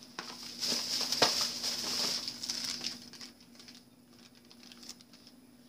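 Packaging rustling and crinkling as items are handled, with a sharp click about a second in; it dies down after about three seconds to faint handling sounds.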